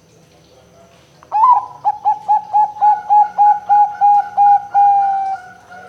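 Zebra dove (perkutut) cooing: a quick run of about a dozen short coos, roughly four a second, starting a little over a second in and ending in one longer note that sinks slightly in pitch.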